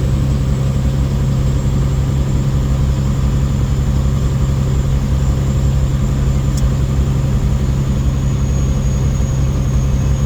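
Semi truck's diesel engine running steadily, a continuous low drone with a thin high whine above it.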